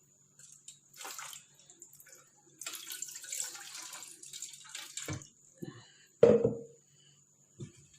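Water being poured into a cooking pot for about two seconds, followed by a few knocks and one loud clank of cookware about six seconds in.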